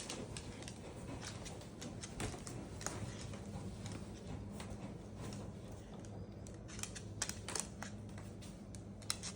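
Washing machine running with a low, steady hum, with scattered light clicks and taps over it.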